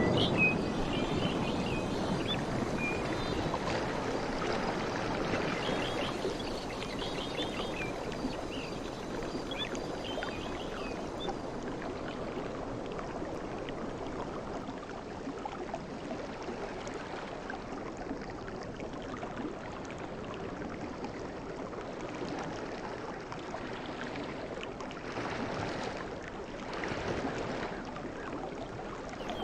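Sea waves breaking and washing over the shore in a steady hiss. The wash of a large wave fades over the first several seconds, and another wave swells up about three-quarters of the way through.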